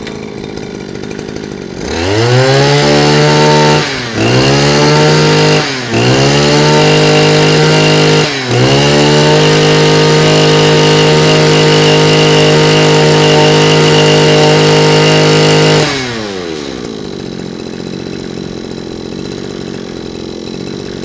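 Mitsubishi TB20 20cc two-stroke engine on a Kaaz UP200 brush cutter idling, then revved hard to high speed four times, the last rev held for about seven seconds before it drops back to idle about 16 seconds in. The seller calls the throttle response very good.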